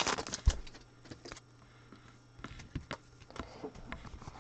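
Trading cards being handled in the hands: a run of light clicks and snaps as the cards are slid apart and squared up, with a soft low thump about half a second in.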